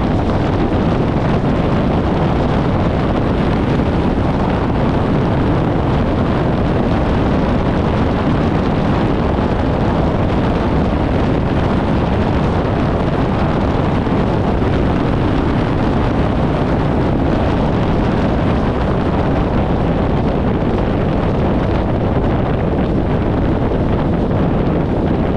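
Steady wind rush buffeting a microphone mounted outside a 1994 VW Gol driving at highway speed, blended with the car's road noise.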